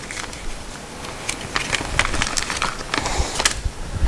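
Light clicks and clinks of loose bolts, nuts and tools being handled, a quick scatter of small taps starting about a second in and ending a little before the end.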